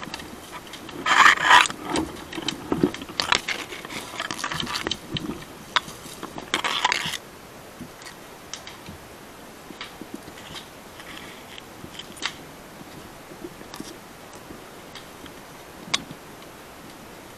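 Dry branches and brush scraping, rustling and snapping as someone pushes and beats through burning undergrowth. It is dense and loud for the first seven seconds or so, then quieter, with a few sharp snaps.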